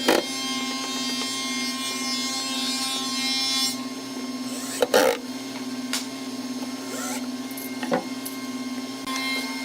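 Woodworking tool noise: a steady hum runs under a rasping stretch in the first few seconds. Sharp knocks come at the start, about five seconds in and near the eighth second.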